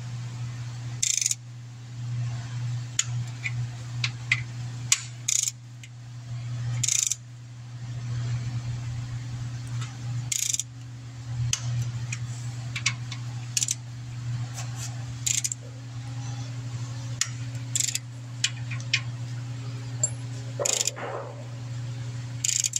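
Torque wrench tightening the rocker arm bolts on a 5.7 Hemi: scattered sharp clicks and short bursts of ratcheting as it moves from bolt to bolt, over a steady low hum.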